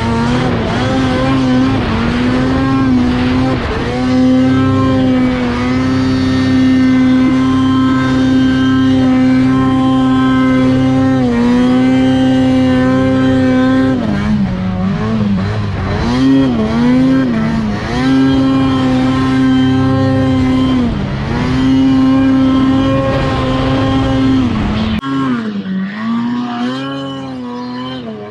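Ski-Doo Summit snowmobile's two-stroke engine running hard at high revs through deep powder. It holds a steady high pitch for long stretches, then dips and climbs again several times as the throttle is eased off and opened back up, most often in the second half.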